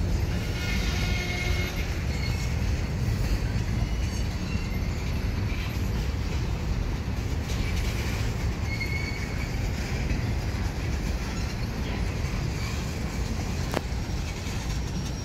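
Freight cars of a CSX train, boxcars and tank cars, rolling past on steel rails: a steady low rumble of wheels and trucks, with a few faint, brief high wheel squeals and a single sharp knock near the end.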